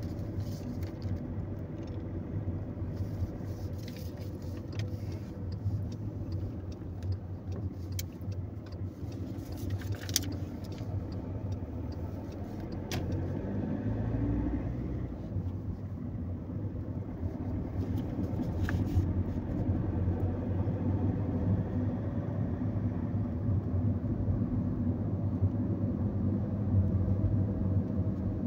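Car engine and tyre rumble heard from inside the cabin of a moving car, steady with a few faint clicks, growing somewhat louder in the second half as the car drives on.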